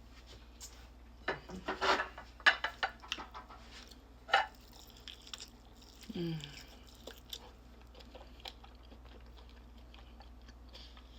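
Crunching into crispy fried chicken and chewing it. A quick run of sharp crackling crunches comes in the first few seconds, then quieter chewing and a short hum about six seconds in.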